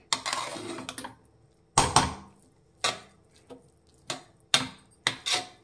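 Metal spatula stirring cooked rice in an aluminium pressure cooker: a scrape in the first second, then a string of irregular clinks and knocks of the spatula against the pot's rim and sides.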